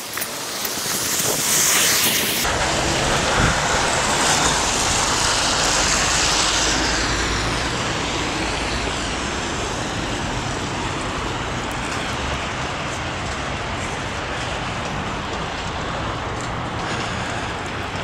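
Steady rushing noise of city road traffic, louder for the first few seconds as vehicles pass, then settling to an even background rush.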